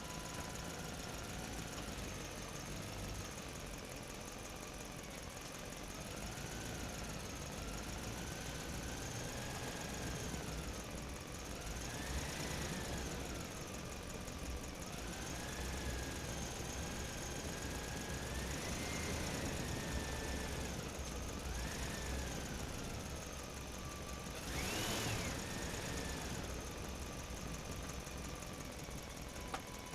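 Engine running with a low rumble and a whine that keeps rising and falling in pitch, like a vehicle revving up and easing off. The biggest rev comes about 25 seconds in.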